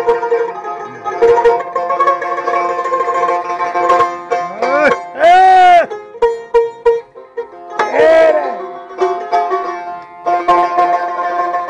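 Long-necked plucked lute playing a steady instrumental passage of repeated notes. Loud wordless vocal cries, rising and falling in pitch, come in about five seconds in, again around eight seconds and near the end; the first is the loudest.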